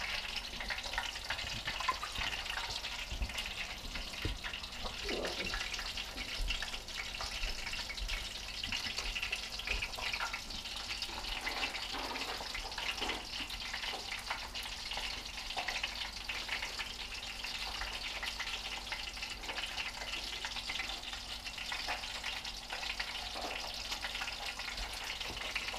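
Brook trout pieces frying in a pan: a steady sizzle of hot oil, with a few faint taps now and then.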